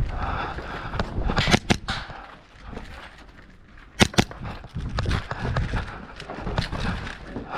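Airsoft guns firing: three sharp cracks in quick succession about a second and a half in, then a pair of sharper cracks about four seconds in. Low thumping and rustling of a player moving runs underneath.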